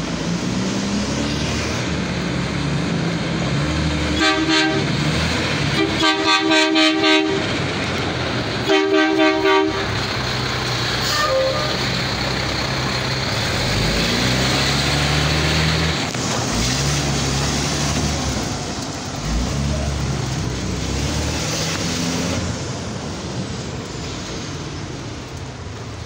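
Horn of a White GMC WXLL front-loader garbage truck honking in short toots: one, then a quick run of about five, then three more. Under and after the horn, the truck's diesel engine runs and revs up several times as it pulls away.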